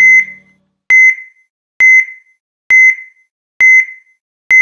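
Heart-monitor beep sound effect: a short, high-pitched electronic beep repeating steadily about once every 0.9 seconds, like a pulse.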